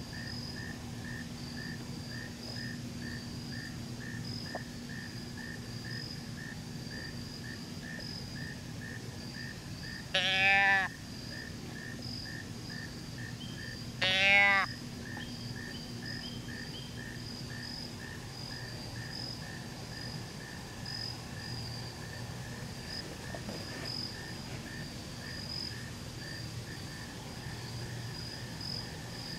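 A steady evening insect chorus, high chirps pulsing about twice a second. Two loud, short bleats cut through it, each about half a second long, some four seconds apart.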